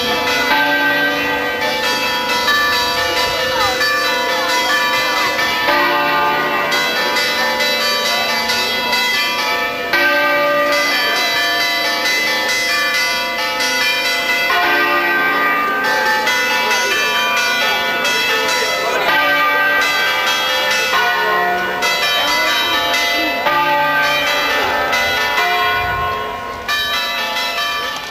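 Church bells pealing, many overlapping ringing tones with fresh strokes every second or two, dying away a little near the end.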